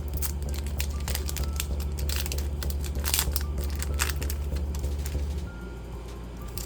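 Foil booster pack of Digimon trading cards being crinkled and torn open: dense crackling rustles with a louder burst of crinkling about three seconds in.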